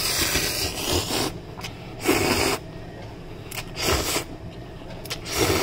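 A person blowing on and slurping hot instant ramen noodles lifted on chopsticks, in four short breathy bursts.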